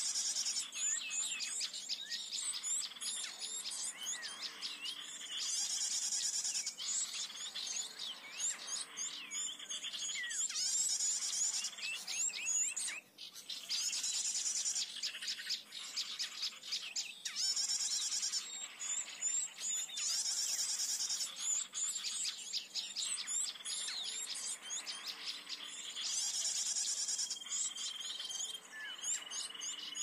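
Sikatan (flycatcher) calls from a bird-lure recording played through a speaker: bursts of rapid, very high chirping, each a second or two long, repeating every few seconds. A faint steady whistle comes in near the end.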